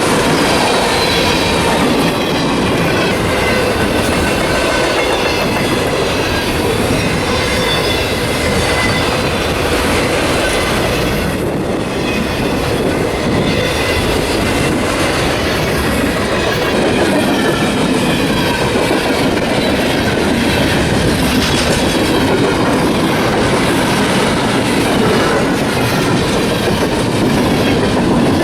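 A train rolling past at close range: a steady, loud rolling of wheels on rail, with thin, high, drifting squeal tones from the wheels.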